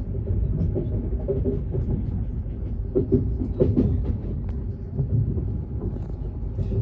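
Passenger train running, heard from inside the carriage: a steady low rumble with scattered light clicks and knocks.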